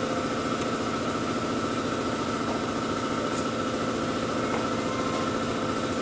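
Power sander running steadily against a pickup truck's sheet-metal body panel, a constant fast-pulsing drone.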